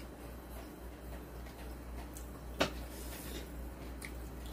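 Quiet eating with chopsticks, with one short sharp click about two and a half seconds in over a steady low hum.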